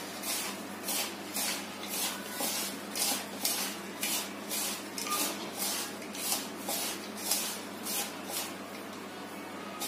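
A bare hand rubbing and mixing dry semolina into crumbled mawa in a bowl, making a rhythmic rustle of about two strokes a second that stops shortly before the end.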